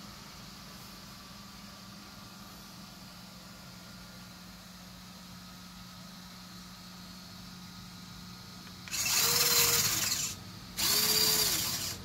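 Electric gear motors of a metal-tracked RC excavator chassis running in two bursts of about a second each near the end, each whining up to speed and back down. Before them there is only a faint steady hum.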